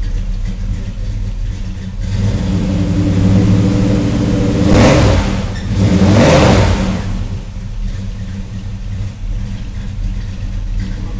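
1968 Chevrolet El Camino's engine, with headers and Flowmaster mufflers, idling and then revved on the throttle. The revs climb from about two seconds in, peak in two sharp blips near the middle, then drop back to a steady idle.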